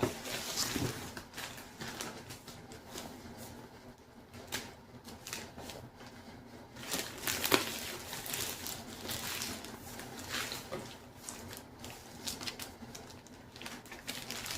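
A shoebox and its paper packing being handled and opened: irregular rustling, scraping and small clicks, with one sharper knock about seven and a half seconds in.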